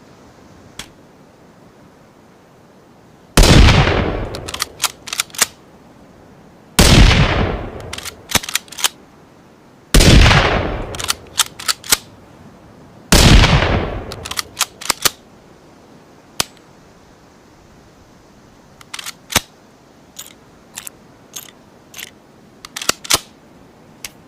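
Ruger American Rimfire bolt-action rifle sound effect: four shots about three seconds apart, each dying away over about a second and followed by a quick run of clicks as the bolt is worked. Later come scattered bursts of lighter mechanical clicks from the action.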